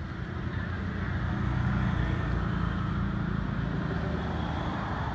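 Motor vehicle going by on the road, its engine and tyre noise growing louder over the first two seconds and staying up.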